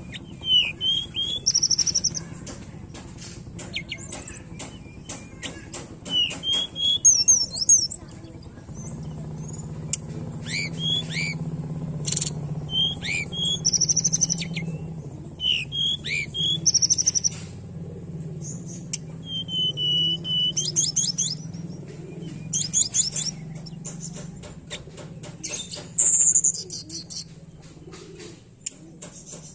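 Hill blue flycatcher (tledekan gunung) singing: a varied song of short clear whistles, sliding notes and rapid trills, given in phrases every second or two. A low steady hum runs underneath, louder from about nine seconds in.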